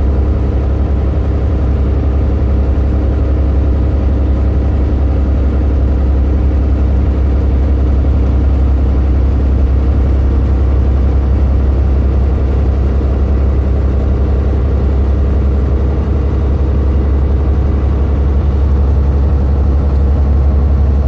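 Semi truck's diesel engine pulling steadily under load on a hill climb, a deep, even drone heard from inside the cab.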